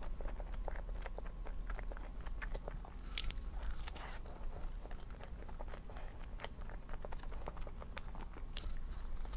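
Close-miked eating of a chocolate crepe cake: chewing with a steady run of small mouth clicks and smacks, and a few sharper bites.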